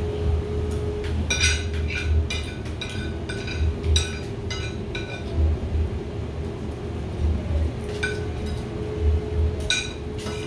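Dishes and glassware clinking during a meal: a quick run of sharp, ringing clinks in the first few seconds, then a couple more near the end.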